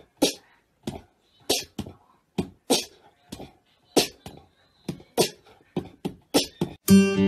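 A run of short, sharp percussive hits at uneven intervals, about two a second. About seven seconds in, loud strummed guitar music starts.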